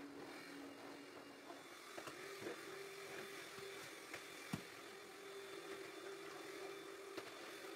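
Stick vacuum cleaner running steadily, its hum stepping up a little in pitch about two seconds in. A few light knocks sound over it, the sharpest about four and a half seconds in.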